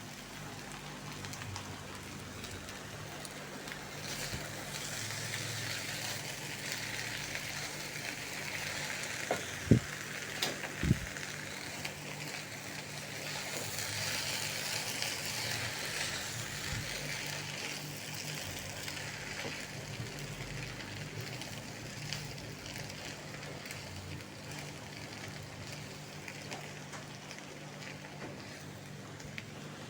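Food sizzling in a hot pan during stir-frying, the hiss swelling in the middle and easing off toward the end, with two sharp knocks of a utensil against the pan about ten seconds in and a low steady hum underneath.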